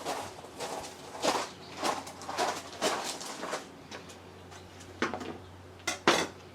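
Handling noises of someone working by hand: a series of short rustles and knocks about twice a second, then a pause and three sharp clicks near the end, over a faint steady low hum.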